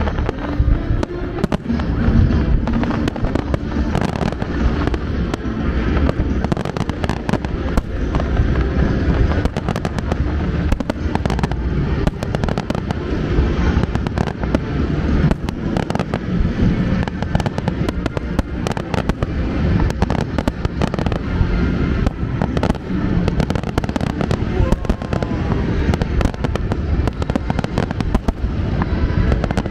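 Aerial fireworks display: shells bursting one after another, with a dense rapid crackle of bangs and pops throughout.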